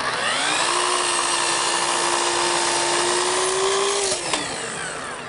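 Festool Kapex sliding compound miter saw switched on, its motor rising to speed and running at a steady pitch while the blade recuts a piece of crown molding. About four seconds in it is switched off and winds down, with a sharp click just after.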